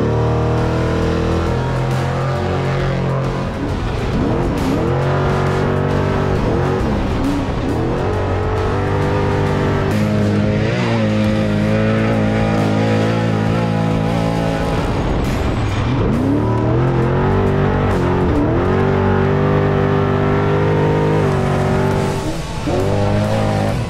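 A Trophy Truck Spec desert race truck's engine revving hard, its pitch climbing and dropping again and again as it accelerates, with music underneath.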